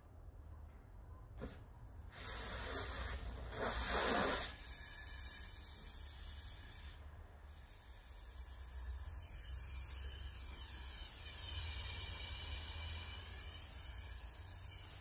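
Oxy-fuel gas brazing torch flame hissing as its valves are opened up, turning a ragged yellow flame into a sharp blue-white one. The hiss swells about two seconds in, is loudest around four seconds, then holds steady.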